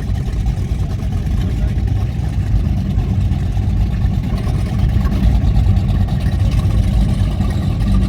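Deep, steady rumble of high-performance powerboat engines running at low speed, growing a little louder about five seconds in.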